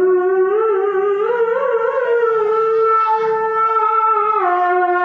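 A boy reciting the Quran in the melodic tilawah style into a microphone: one long held, ornamented note that wavers gently, then steps down in pitch about four seconds in.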